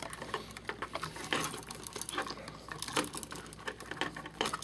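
Bare copper ground wires being twisted together with pliers: irregular scratching and clicking of metal on metal as the splice is tightened.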